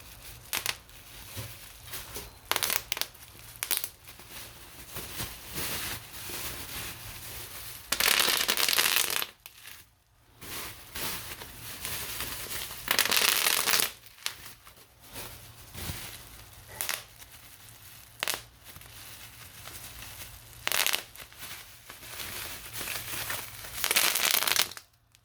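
Bubble wrap being popped and crumpled by hand: scattered sharp pops and crinkling, broken by three loud stretches of dense crackling as the wrap is squeezed or twisted, about 8 s in, about 13 s in, and near the end.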